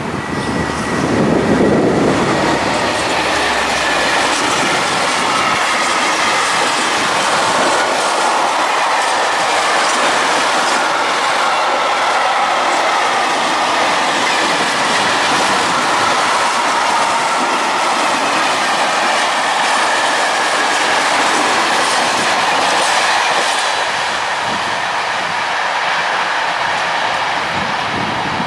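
Freight train of covered sliding-wall wagons and flat wagons rolling past, a steady loud rumble of wheels on rail with faint wavering high tones over it; it eases slightly near the end as the tail draws away.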